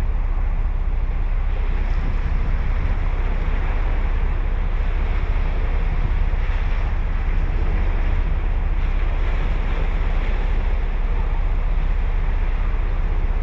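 Ocean surf washing steadily onto a sandy beach, with a constant low wind rumble on the microphone.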